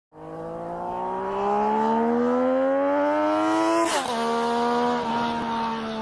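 Sport motorcycle engine accelerating, its pitch climbing steadily for about four seconds. Then an upshift drops the pitch suddenly and it pulls on at steady revs.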